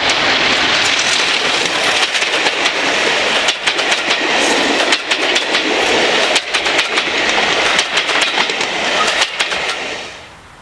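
Class 33 diesel-hauled passenger train running past close by, the coaches' wheels clattering with irregular clicks over the rail joints. The noise drops away sharply about ten seconds in.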